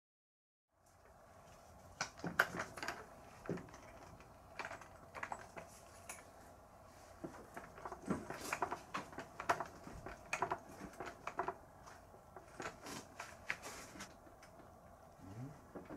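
Irregular clicks and light metallic knocks as tools and parts are handled while working on a rice transplanter's front axle, a few strikes with a short ring.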